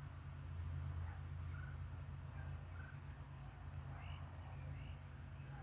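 Wild turkeys calling faintly a few times, over insects chirping in an even pulse about once a second.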